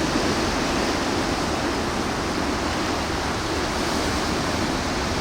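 Steady rushing roar of surf breaking on the beach, with no single wave standing out.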